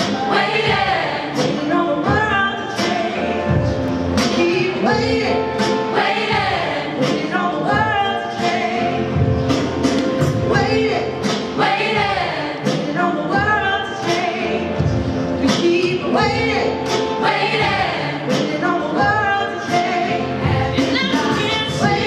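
Teenage choir singing in harmony behind lead soloists on microphones, accompanied by acoustic guitar over a steady beat.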